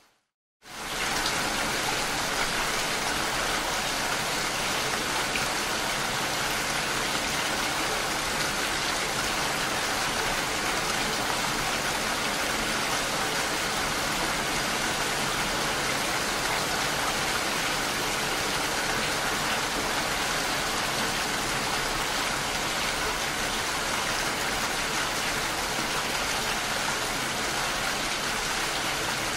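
Steady rain, an even hiss of many drops, starting up just after a split second of silence at the very start.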